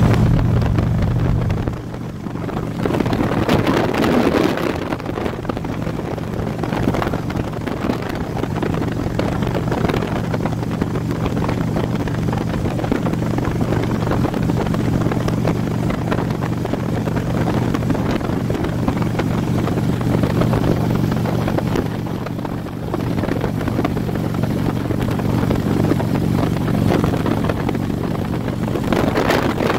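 Motorcycle engine holding a steady cruise at highway speed, with wind rushing over the microphone; the wind swells briefly a few seconds in and again near the end.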